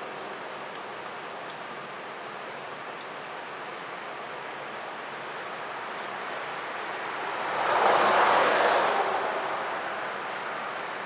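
Evening city ambience: a steady high-pitched insect drone over a background hiss, while a vehicle passes by, its noise swelling and then fading over about three seconds.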